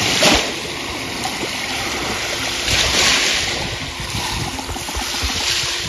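Small Lake Michigan waves washing onto a sandy shore: a steady rush of surf that swells three times, near the start, about three seconds in and again about five and a half seconds in.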